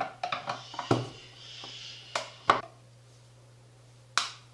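Scattered sharp clicks and knocks of the Aneng AN888S bench multimeter's plastic case and screws being handled as its speaker section is unscrewed and taken apart. There is a short scraping hiss a second or so in, and the loudest click comes about two and a half seconds in, over a low steady hum.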